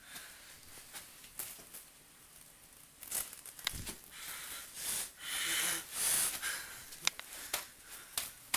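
Faint room tone, then from about three seconds in a run of short breathy huffs and rustles with a few sharp clicks, from a person moving about and breathing hard.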